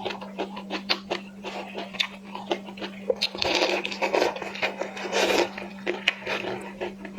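Close-miked prawn eating: shell crackling, wet clicks and chewing, busiest around the middle. A steady low hum runs underneath.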